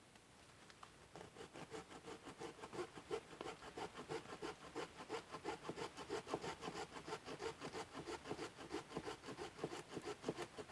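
Hand saw cutting through wood in quick, even back-and-forth strokes, about three or four a second, starting about a second in.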